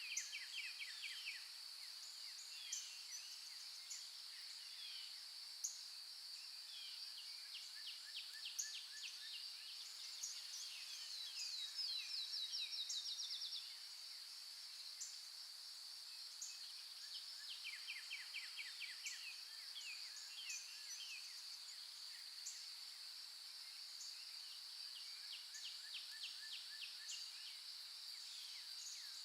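Forest dawn chorus: a steady high-pitched insect drone under many short bird chirps and trills. A fast, rapidly repeated bird trill near the middle is the loudest call.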